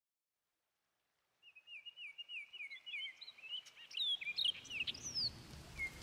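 Birdsong starting about a second and a half in: a run of quick down-slurred whistled notes, about four a second, then a mix of assorted chirps and calls. A low rumble comes in about four seconds in.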